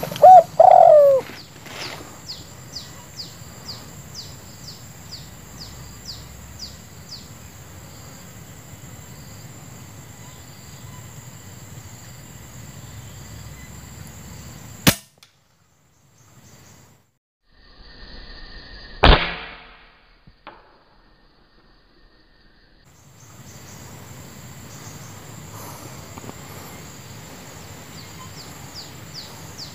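A single loud air rifle shot about 19 seconds in, with the sound dropping out sharply for several seconds around it. The rest is a steady outdoor background with runs of fast high chirps and a brief coo at the very start.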